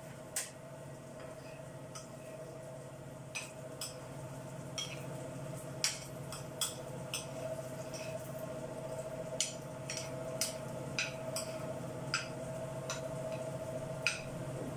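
Metal spoon clinking and scraping in a small frying pan as fox nuts (makhana) and cashews are stirred while roasting, giving irregular sharp clicks over a steady hum.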